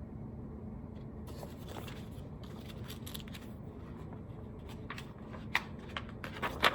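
Paper rustling as a picture-book page is handled and turned, with light crinkles and small clicks that grow sharper near the end, over a low steady room hum.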